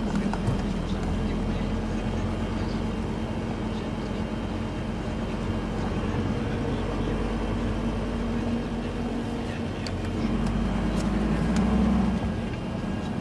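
A vehicle running steadily, a constant low hum under engine and road noise, growing a little louder near the end.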